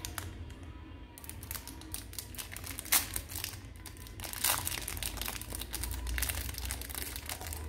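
Clear plastic toy wrapper crinkling and crackling as fingers pull at it to open it, with two sharper cracks about three and four and a half seconds in.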